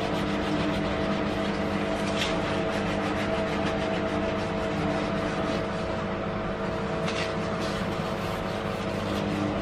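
Steady machine hum with several fixed tones, from a running household appliance, with two short swishes of a sponge wiping a granite countertop about two and seven seconds in.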